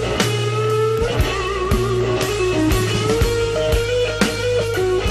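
Rock music with electric guitar playing held notes over a steady drum beat.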